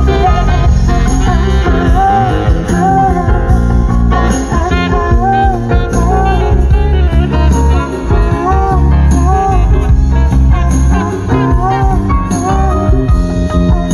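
Music played through a car's upgraded audio system (Crescendo three-way front speakers, Crescendo amplifiers, VOX DSP and a 12-inch Focal subwoofer), heard inside the cabin: a song with heavy, steady bass and a melodic phrase repeating about once a second.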